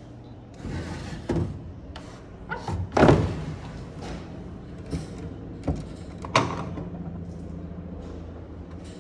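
Drawers and doors of a solid Brazilian rosewood sideboard being handled: a drawer slid out and back with wooden scraping, and several wood-on-wood knocks, the loudest about three seconds in, as a cupboard door is opened.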